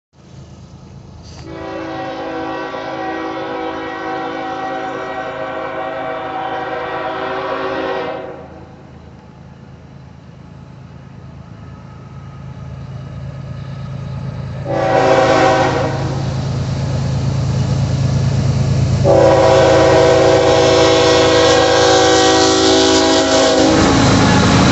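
CSX freight locomotive's air horn, a chord of several tones, sounding a long blast, a short one and another long one for a grade crossing. Underneath, the rumble and rail clatter of a double-stack container train rolling past grow louder.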